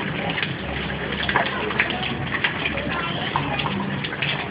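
Babble of several voices talking at once, none clear, with scattered light clicks and knocks.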